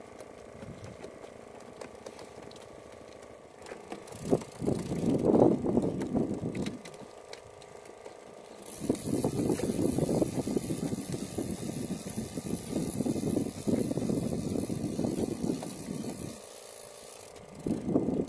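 Fishing reel being cranked in three stretches, the middle one about seven seconds long, a busy mechanical rattle as line is wound in, over a steady low hum.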